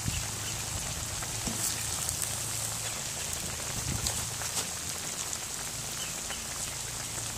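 Catfish pieces deep-frying in hot oil in a cast-iron Dutch oven: a steady sizzle with many small pops and crackles.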